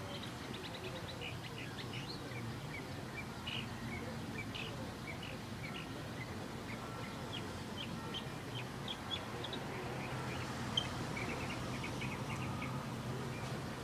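Small birds chirping in trees: many short, high calls, scattered irregularly, with a denser run near the end. A low, steady hum runs underneath.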